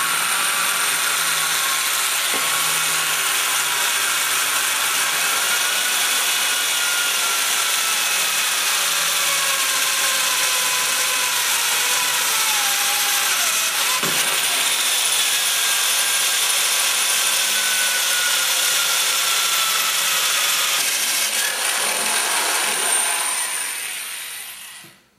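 3/8-inch electric hand drill running a 3/16-inch bit through the chassis tubes. The motor whine sags slowly in pitch as the bit bears down and climbs back as it frees up, with a click about halfway through. The drill stops shortly before the end.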